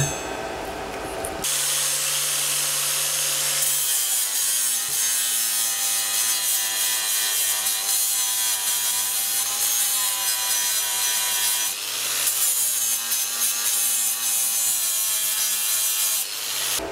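Electric angle grinder running at full speed and grinding steel plate. It starts about a second and a half in and then runs steadily: a motor whine over the hiss of the abrasive disc on the metal, easing off for a moment about twelve seconds in.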